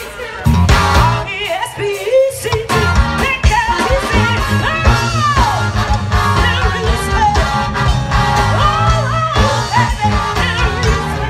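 A live band plays a song with a lead singer, over a steady drum beat and a strong bass line.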